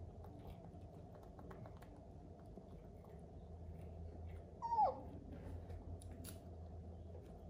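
A baby macaque's brief squeak that falls sharply in pitch, a little past halfway through, over faint scattered clicks and a low steady hum.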